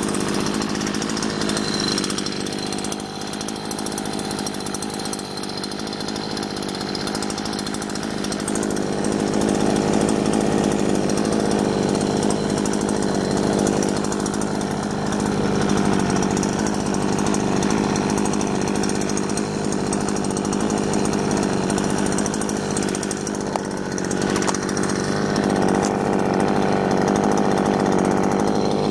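Vito VIR43E 43 cc two-stroke petrol brushcutter running at high revs, spinning a nylon-line trimmer head through grass. The engine note holds steady, with a slight dip in level a few seconds in and again near the end.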